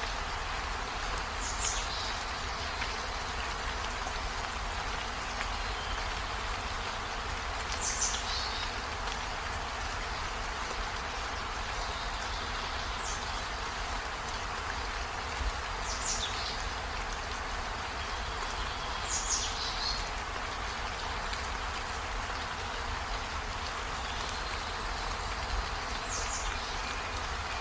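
Steady rain hiss, broken six times by a short high chirp that drops in pitch, a few seconds apart.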